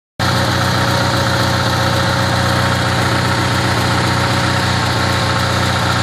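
Onan NH 6.5 kW gasoline generator running steadily, with an even low pulsing beat.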